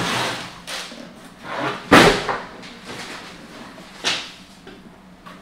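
Tissue paper and a cardboard box rustling as a heavy leather work boot is lifted out and handled. There are two sharp knocks, the louder about two seconds in and another about four seconds in, as the boot and box bump against the table.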